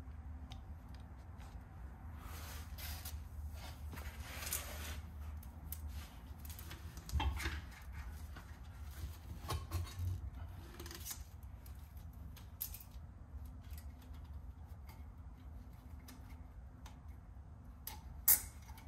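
Faint handling noises as heavy-duty plastic zip ties are fed around a trailer axle: scattered light clicks and rustles, a few louder knocks against the axle and a sharp click near the end, over a low steady hum.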